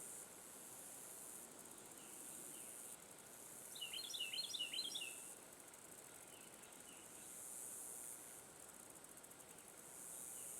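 Outdoor ambience of insects buzzing high-pitched in swells that rise and fall every couple of seconds. A bird gives a quick burst of chirps about four seconds in, the loudest sound, with a few fainter single chirps elsewhere.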